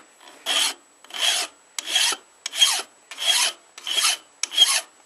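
A hand file rasping across a metal knife blade clamped in a vise, in seven even push strokes about three every two seconds.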